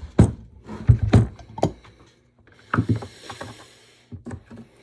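A run of irregular knocks and clatters of hard objects being handled on a workbench, with a short lull about halfway through.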